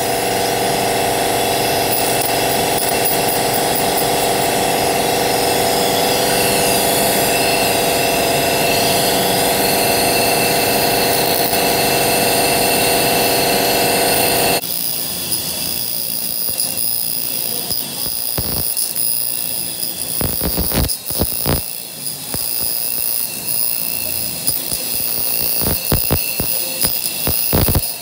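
Handheld fiber laser cleaning system at work: a steady machine hum with a high whine, then, after an abrupt drop about halfway, irregular sharp crackles and snaps as the pulsed laser ablates the surface of a steel bar.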